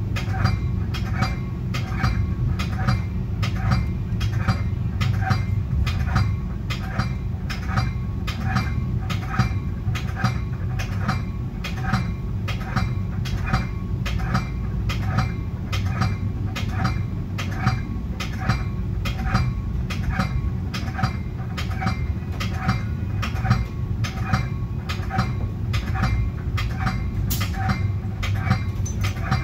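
Metra commuter train running along the rails, heard from inside its cab car: a steady low rumble with a regular ringing tick about one and a half times a second.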